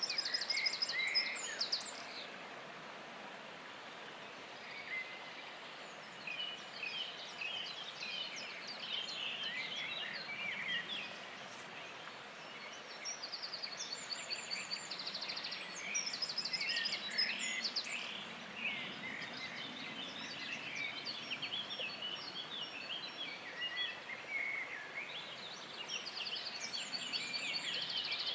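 Several songbirds singing over one another, one of them with a loud, fast-trilled phrase that comes back about every 12 to 14 seconds, over a steady background hiss.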